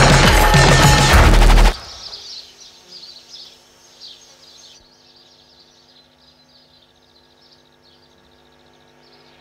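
A loud, dense burst of rapid clattering hits and noise that cuts off abruptly under two seconds in. It gives way to faint, scattered bird chirps over a low, steady hum.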